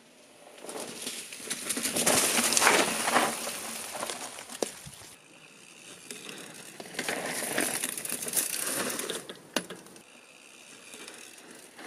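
Pivot Trail 429 mountain bike rolling along a forest trail, its knobby tyres crunching over dry fallen leaves and dirt. It comes in two passes, each swelling up and fading over a few seconds, with a few sharp clicks.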